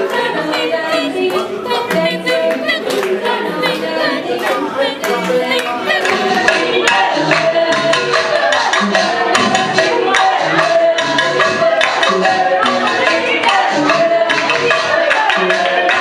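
A group of voices singing a lively song into microphones over a steady percussive beat.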